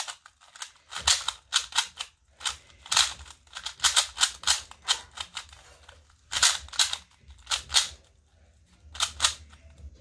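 MoFang 2x2 stickerless speed cube being turned quickly by hand: the plastic layers snap round in runs of sharp clicks, with short pauses between groups of turns.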